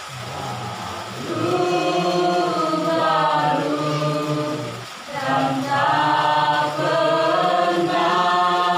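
Wordless singing of a worship song melody, several long held notes, with a short break about five seconds in.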